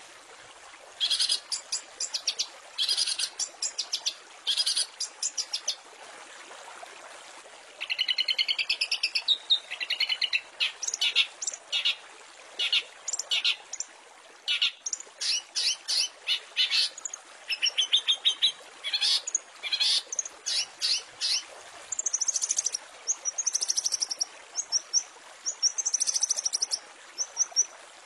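Long-tailed shrike (cendet) singing in short rapid-fire runs of quickly repeated chattering notes and trills, with a lull of about two seconds a quarter of the way in. Higher, thinner phrases come toward the end.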